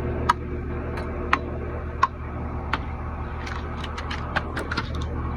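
A steady low mechanical hum with sharp clicks and ticks over it: a few spaced about a second apart, then a quick run of them about three and a half seconds in.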